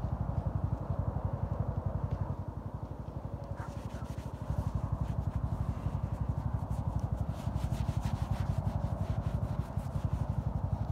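A hand rubbing and scratching a beefalo's coarse hair right against the microphone, in scratchy strokes that come thickest in the second half, over a steady, rapidly pulsing low rumble.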